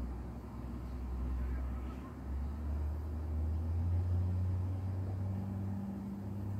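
Low electrical hum of a 2006 Rheem Classic 3.5-ton central air-conditioner condensing unit starting up. About two seconds in, the hum steps up in pitch and grows louder, and a second, higher hum joins it later.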